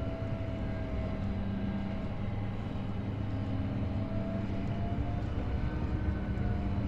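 Boat engine running steadily: a low hum with a faint higher whine that wavers in pitch.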